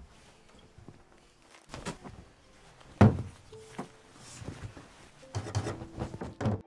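Thumps and knocks of objects being handled while belongings are rummaged through. The loudest is a single thud about three seconds in, with a run of smaller knocks near the end.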